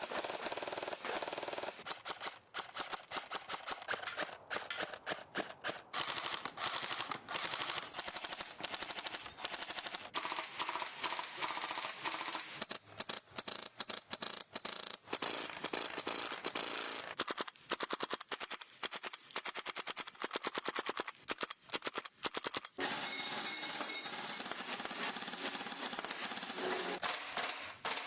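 Gas-powered airsoft guns firing in rapid automatic bursts: fast strings of sharp cracks broken by short pauses.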